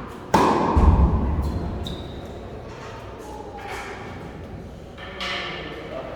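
A sudden loud knock followed by a deep thud that dies away over a second or two, with a second, weaker knock near the end.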